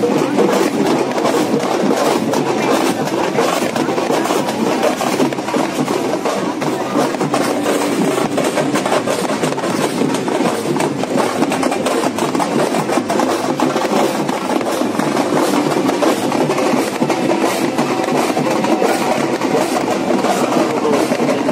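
Loud music with percussion over a dense, continuous background din.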